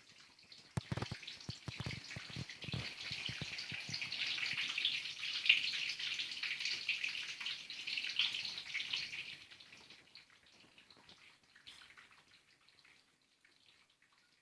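Falling water drops from a drip waterfall (water curtain), splashing in a dense steady patter. A quick run of sharp clicks and taps comes in the first few seconds, and the splashing fades out about ten seconds in.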